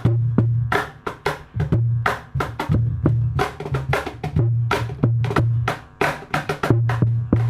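Handmade stompbox and cajon played together in a steady rhythmic groove: deep booming bass thumps from the stompbox under sharp slaps and taps on the cajon.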